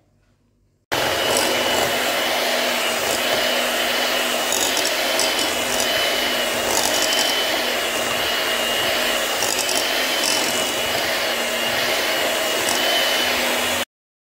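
Electric hand mixer running steadily at one speed, its beaters whipping pastry cream with softened butter in a bowl. It switches on abruptly about a second in and cuts off suddenly just before the end.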